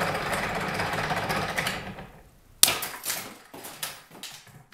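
PVC bow with an oak dowel handle bursting under full draw: one sharp, very loud crack about two and a half seconds in, as the dowel handle shatters along its run-off grain, followed by a few smaller knocks of pieces landing. Before it, a steady rasping noise runs for about two seconds and stops.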